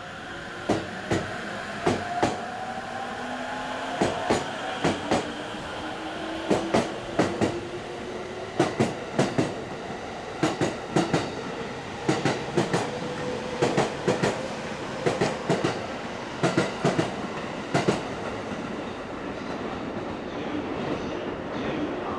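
E231-series Joban Rapid electric train pulling out and gathering speed: its wheels clack over the rail joints in quick pairs as each car passes, under a motor whine that rises in pitch. The clacking stops about eighteen seconds in, leaving a steady rumble.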